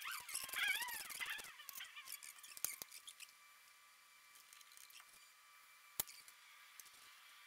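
Socket ratchet on a long extension tightening a spark plug into a Jeep Wrangler's 2.5 L engine: a quick run of ratchet clicks with a squeak in the first second and a half, a few scattered clicks after, and one sharp click about six seconds in.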